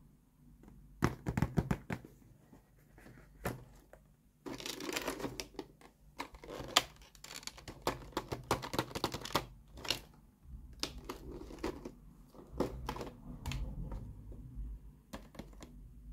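Cardboard toy boxes with clear plastic windows being handled and shuffled, making crinkling, rustling and clicking sounds in irregular bursts with short quiet gaps between them.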